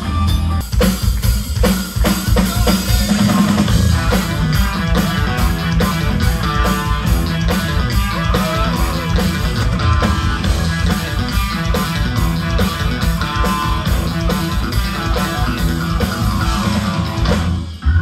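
Live rock band playing an instrumental passage on electric bass, electric guitar and drums, with no vocals. The band drops out briefly just before the end, then comes back in on a loud accent.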